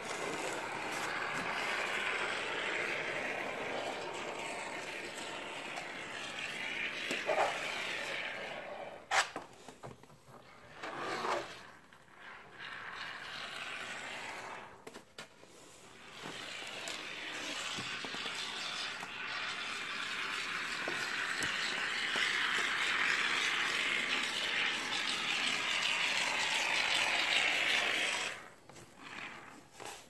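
Aerosol can of expanding polyurethane spray foam dispensing with a steady hiss in two long runs, broken around the middle by a few sharp clicks and short scrapes.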